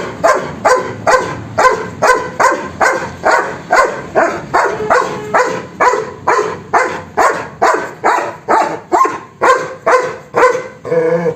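Dog barking in a fast, steady string, about two to three barks a second without a break.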